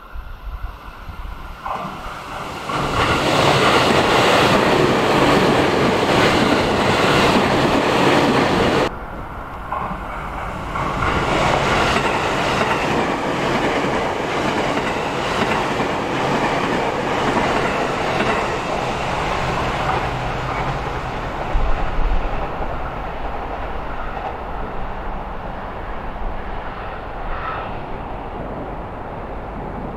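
E653 series electric limited express train passing at speed, its wheels clattering over the rail joints. The noise is loudest for several seconds, cuts off abruptly, then the train noise starts again and slowly fades.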